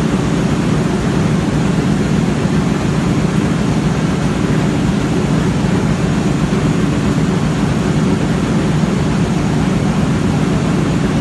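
Loud steady mechanical drone, like a running engine or machinery, holding an even level with no breaks.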